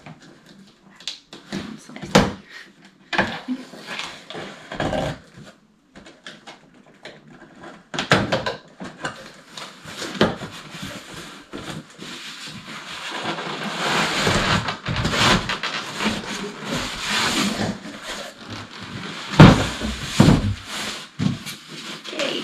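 A cardboard box being opened: short clicks and scrapes at first as the tape is worked loose, then continuous rustling and scraping of cardboard and packing as the flaps are pulled open and the incubator is lifted out, with a couple of loud knocks near the end.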